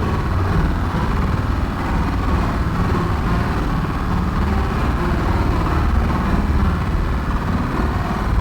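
A steady, low engine-like rumble that runs without a break.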